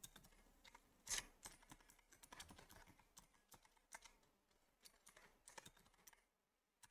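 Faint typing on a computer keyboard: a quick, uneven run of key clicks that stops near the end.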